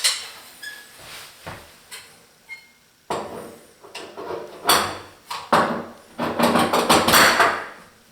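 Towel bar hardware being fitted back onto its wall mounts: a few light clicks, then from about three seconds in a run of louder knocks and scraping.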